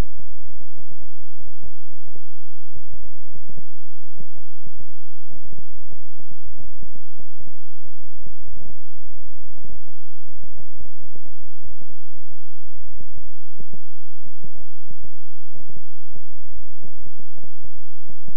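Synthesized low-pitched 'healing frequency' drone: several low tones held steady, with uneven low thuds pulsing through it several times a second.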